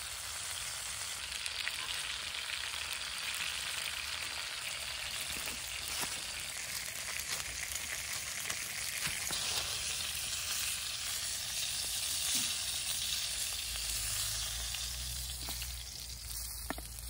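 Chicken kielbasa sausages frying in a cast-iron skillet over a campfire: a steady sizzling hiss with a few faint clicks.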